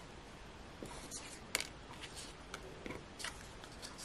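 Light clicks and rustles of card toppers being picked up and set down on a card front: a handful of small taps, the loudest about one and a half seconds in.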